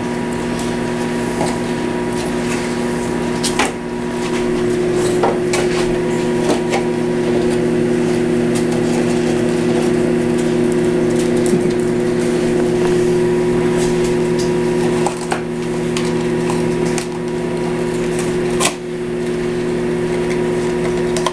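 Beagles chewing and tearing at an empty cardboard food box, with irregular crunching and crackling of the cardboard, over a steady low hum.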